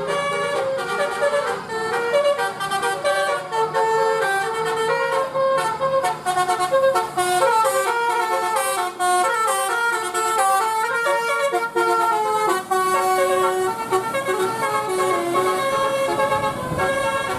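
Telolet Basuri multi-tone bus horn playing a melody, its notes stepping quickly from pitch to pitch.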